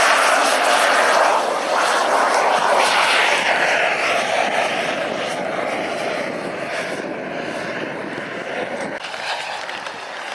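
Twin jet engines of a radio-controlled A-10 Warthog model at full power for takeoff, a loud rushing whine that fades and drops slightly in pitch as the model climbs away.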